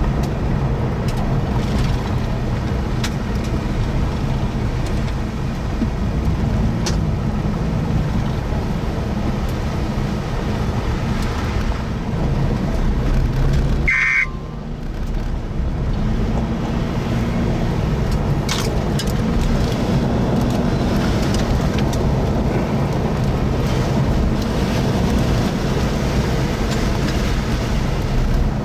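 Steady, loud road and engine noise from a car driving, with a low hum that wavers up and down. About halfway through it breaks off briefly with a short high beep, then carries on.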